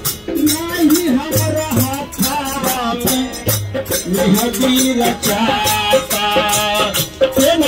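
Live devotional singing in a crowd, a voice carrying a wavering melody over a steady, fast shaken-rattle or small-cymbal beat, with occasional low drum strokes.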